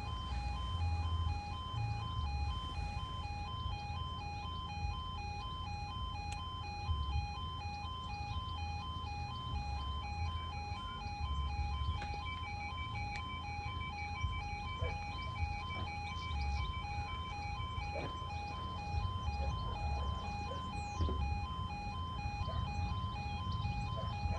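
Level crossing warning alarm sounding at a miniature warning light (MWL) crossing: a rapidly pulsing multi-tone electronic alarm that repeats evenly, with an extra higher tone joining about ten seconds in. It sounds while the red light shows, warning that a train is approaching.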